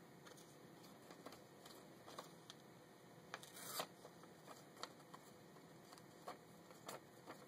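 Faint handling of a small sheet of paper: scattered light rustles and small clicks, with one louder rustle about three and a half seconds in.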